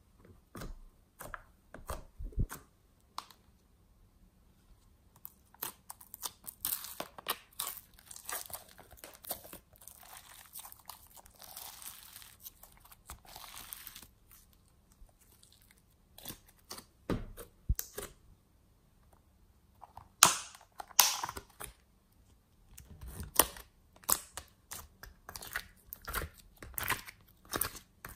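Glittery slime being stretched and squeezed by hand: irregular sticky crackling and tearing sounds in uneven bursts, with a few sharp clicks. The loudest burst comes about two-thirds of the way in.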